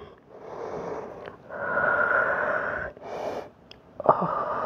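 A woman breathing hard and audibly, several long breaths in and out from the effort of holding a plank-like position while moving a dumbbell, with a small click shortly after four seconds in.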